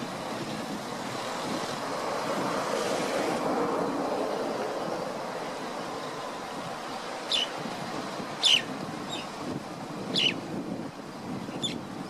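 Steady rush of wind and water, with a bird's short, high chirps that slide downward, about half a dozen of them from about seven seconds in, each louder than the background.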